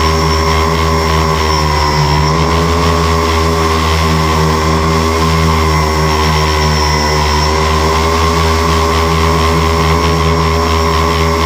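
Tricopter's electric motors and propellers running in flight: a steady multi-toned whine that dips slightly in pitch about two seconds in and then wavers gently with throttle changes.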